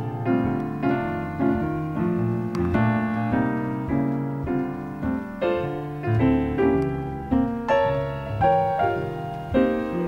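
Background music: piano playing an instrumental break in a jazz song, with notes and chords struck in a steady pulse about once a second.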